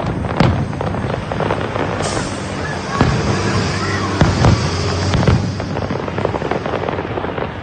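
Fireworks going off: several sharp bangs, with crackling and a high hiss from about two seconds in until a little past five seconds.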